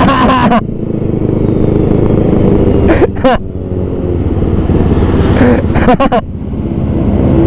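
Motorcycle engine running on the move, its note swelling and easing.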